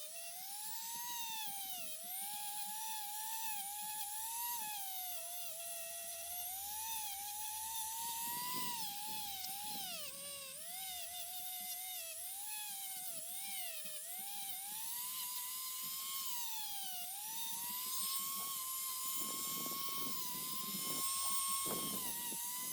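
Rotary tool with a brass wire brush spinning against a die-cast car's oxidised metal base to polish it. The motor whine keeps dipping and recovering in pitch as the brush is pressed on, and runs steadier over the last few seconds.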